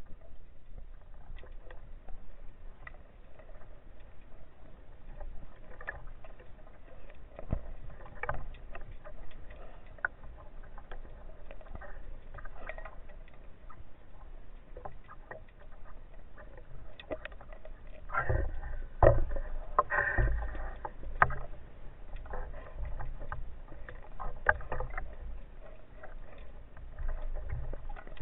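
Underwater sound on a spearfishing dive: scattered sharp clicks and crackle over a low rumble, with a few louder rushing bursts about 18 to 21 seconds in.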